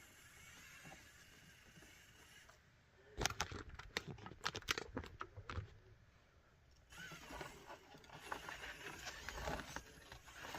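Small RC rock crawler (Traxxas TRX-4M on a Meus MB18 chassis) bumping and clattering over an obstacle as it climbs. About three seconds in comes a run of sharp knocks and clicks for two to three seconds, then softer clatter later on.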